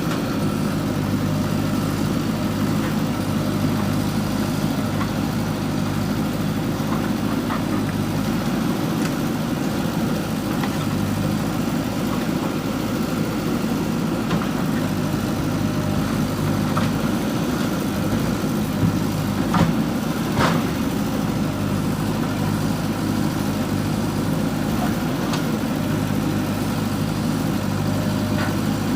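JCB 3DX backhoe loader's diesel engine running steadily, with a couple of sharp knocks about two-thirds of the way through.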